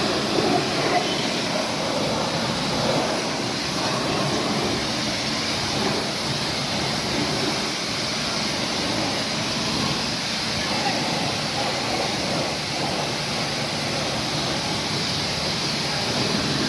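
Steady rush of a water jet spraying onto a motorcycle to rinse it during a wash.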